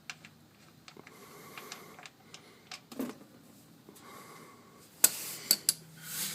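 Scattered clicks and ticks of a socket wrench working the oil pan drain plug loose, with a few loud sharp metallic clanks about five seconds in.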